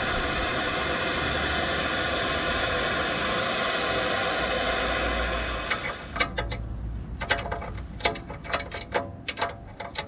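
Handheld propane-mix gas torch burning with a steady hiss, heating the aluminium hub carrier to free a seized steel bush sleeve. It cuts off about six seconds in, followed by a run of short metallic clinks as a ring spanner is fitted to the bush bolt.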